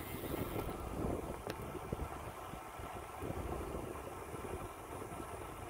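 Wind buffeting the microphone over the steady rumble of a bicycle's tyres rolling on rough, patched asphalt.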